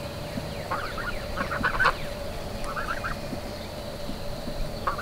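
Domestic geese and ducks calling in quick runs of short honking notes: about a second in, again near three seconds, and at the end.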